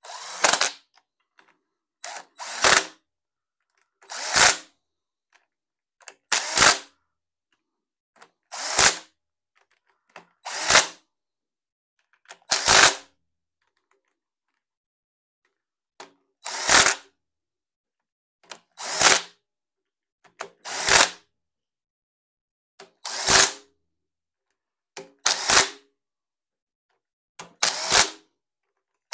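Cordless power driver spinning head bolts down into the cylinder head of a Ford 200 cu in straight-six, one short burst per bolt, about thirteen bursts roughly two seconds apart.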